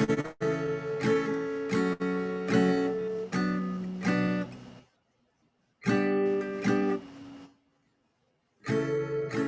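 Acoustic guitar strumming chords, with the playing stopping briefly twice, about five seconds in and again near the end, as chords are tried out.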